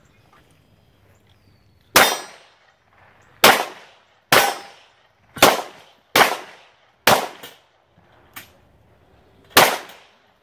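Seven pistol shots fired by a competitor moving through an action pistol stage, spaced roughly a second apart with a longer pause before the last. Each shot is sharp with a short echo trailing off.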